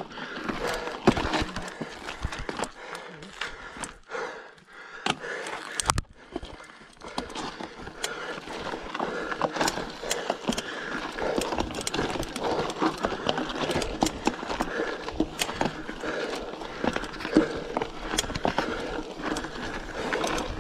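Bicycle rolling over a rough dirt trail: a continuous rattle with frequent irregular knocks and clicks from the bumps, easing briefly about four seconds in before picking up again.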